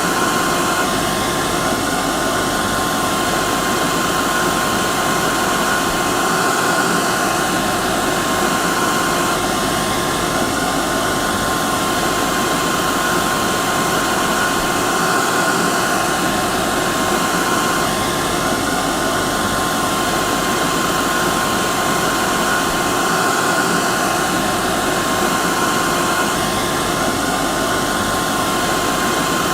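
Hair dryer running steadily: an even rush of blown air with a steady whine from its motor and fan.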